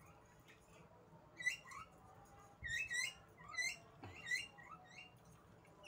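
A small animal's short high-pitched chirps, about five of them, single and in a quick pair, each a sharp upward hook.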